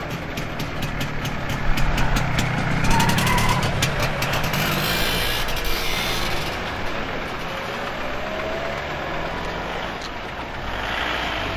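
Vehicle engines passing at low speed: an old motorcycle runs close by with a rapid, even firing beat, loudest in the first half, then a van's engine drives past more quietly.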